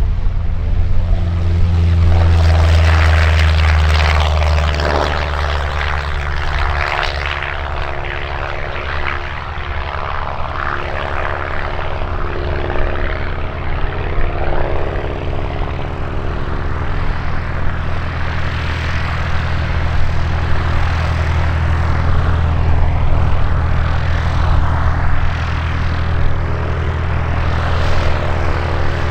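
Rutan Long-EZ's piston engine and rear-mounted pusher propeller at takeoff power as the plane lifts off and climbs away: a steady low engine drone with a propeller buzz over it, loudest a few seconds in.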